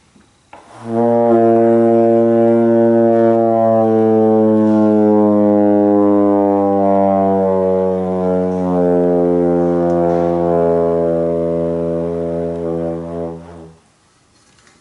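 Trombone holding one long, loud note that starts on first-position low B-flat; as the slide is slowly pushed out the pitch falls steadily over several seconds, then holds at the bottom until the player runs out of air and the note stops near the end.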